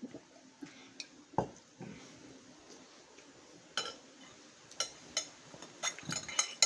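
Tableware sounds during a meal: a single knock about a second and a half in, then a run of light clinks of metal and glass toward the end, as the glass serving bowls and utensils are handled.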